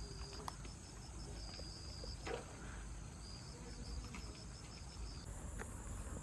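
Insects chirping in a faint, high, pulsing trill that stops about five seconds in, over a low steady rumble.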